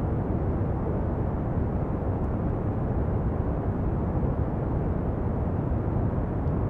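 Steady pink noise: an even, unbroken hiss-rumble, heaviest in the low end, with no change in level.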